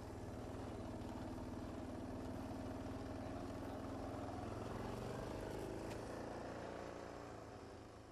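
A motor vehicle's engine running at steady low speed, its pitch rising and falling slightly, then starting to fade out near the end.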